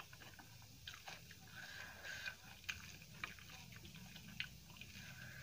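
A hand mixing rice with potato curry and crumbled papadam on a steel plate: soft squishing with many small, irregular clicks and crackles.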